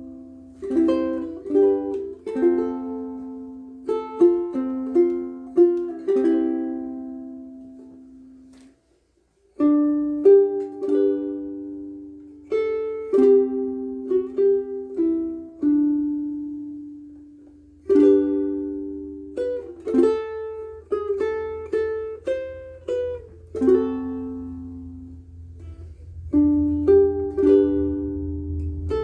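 Koaloha Opio ukulele strung with Aquila B-black strings, played solo: plucked melody notes and chords that ring and fade, with a short full stop about nine seconds in before the playing resumes.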